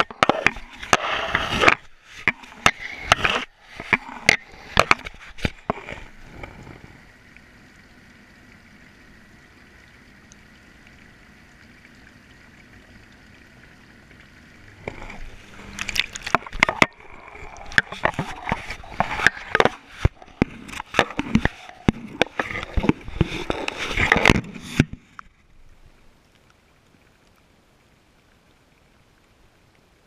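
GoPro camera tumbling in a washing machine drum: bouts of rapid knocking and clattering as it is thrown against the drum, with a quieter steady stretch between the two bouts. It falls much quieter after the second bout.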